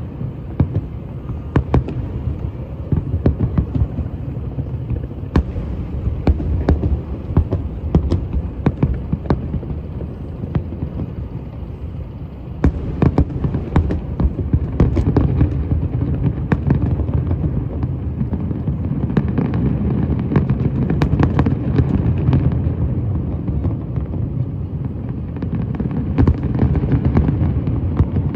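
Fireworks display: many sharp cracks and pops over a continuous low rumble of booms, growing denser and louder about halfway through.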